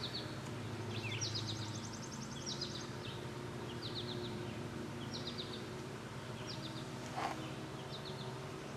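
A songbird singing short phrases of a few quick high chirps, repeated about once a second, over a steady low hum. There is a brief click about seven seconds in.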